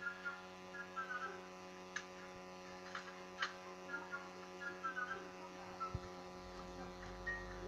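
Pet meerkat giving short high-pitched chirps in small clusters, roughly once a second, over a steady electrical hum, with a few sharp clicks.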